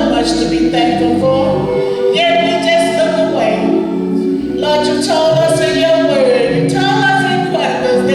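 Gospel choir singing, several voices holding sustained notes together.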